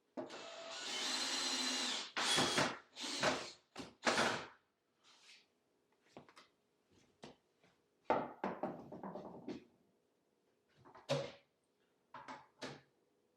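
Power drill driving screws into wood: one run of about two seconds, then several short bursts, followed by scattered knocks and clicks.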